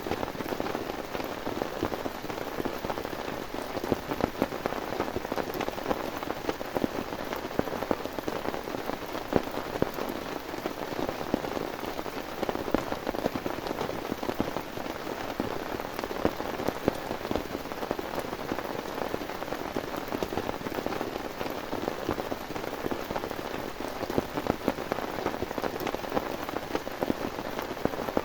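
Heavy rain falling steadily, a dense patter of individual drops striking a surface.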